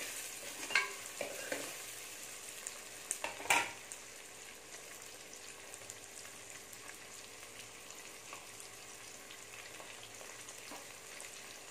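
Shallots, garlic cloves and green chillies sizzling in hot oil in a metal pot, with a metal spoon scraping and knocking against the pot as they are stirred during the first few seconds. After that there is only a steady, quieter sizzle.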